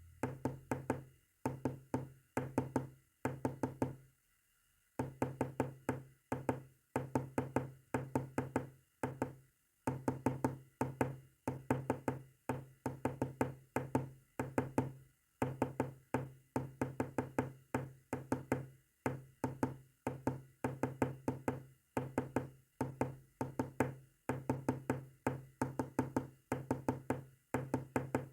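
Morse code tapped out as rapid knocking clicks. The clicks come in quick runs of about a second each, broken by short pauses, with longer breaks about four and ten seconds in.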